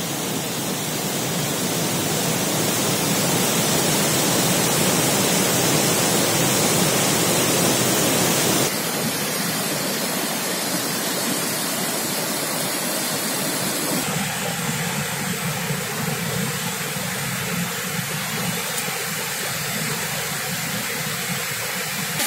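Steady rush of falling water from a waterfall in a gorge. Its tone shifts abruptly twice.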